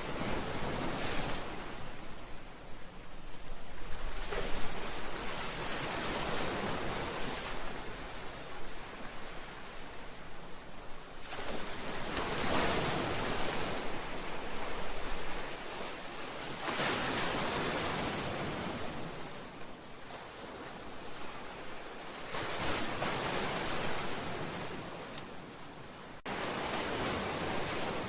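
Sea waves surging against a seawall and breakwater, a steady rushing wash that swells and ebbs every few seconds, with a sudden change in the sound near the end.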